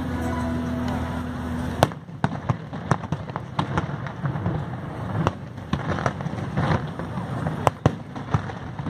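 Fireworks going off: one sharp bang about two seconds in, then an irregular run of pops and crackles from bursting shells.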